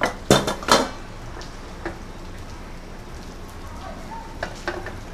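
Dishes and a bottle being handled on a tray, clinking and knocking: three sharp knocks in the first second, then a few lighter taps, over a steady hiss.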